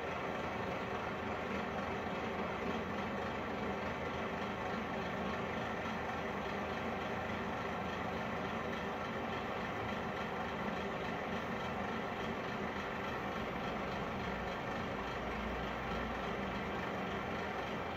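Metal lathe running steadily as its cutting tool turns down the worn end of a steel roller shaft, machining it to take a sleeve.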